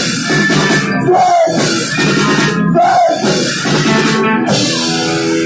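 Live rock band playing loud: electric guitars, bass and drum kit in a choppy riff that breaks off briefly several times. Near the end the drums drop out and held notes ring on.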